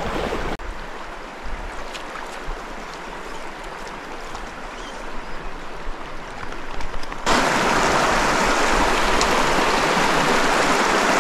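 Shallow, rocky mountain stream running, a steady rush of water that turns suddenly louder about seven seconds in, where white water breaks over a riffle.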